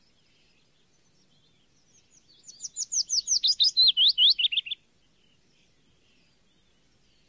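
A bird singing: a fast run of about fifteen short downward-slurred whistles lasting about two seconds, the notes dropping lower in pitch toward the end. Faint scattered chirps come before and after.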